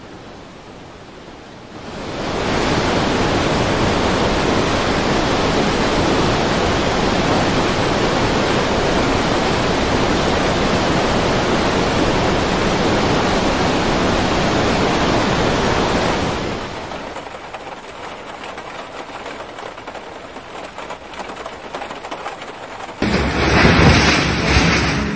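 Fast-flowing floodwater rushing, a loud steady noise that drops to a lower level about two-thirds of the way through, then swells into a louder burst near the end as a muddy flow sweeps through debris.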